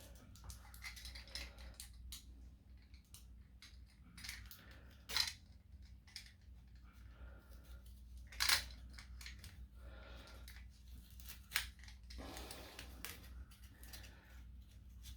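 Knife cutting through the double-sided tape between LiFePO4 battery cells: scattered scraping and slicing noises with a few sharp clicks, the loudest about five and eight and a half seconds in, and a longer scrape near the end.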